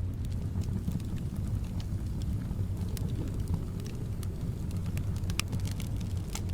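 Wood fire in a fireplace crackling, with scattered sharp pops, the loudest about five seconds in, over a steady low rumble of soft wind.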